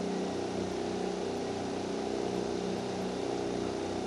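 An engine running steadily: a constant drone that holds one pitch throughout.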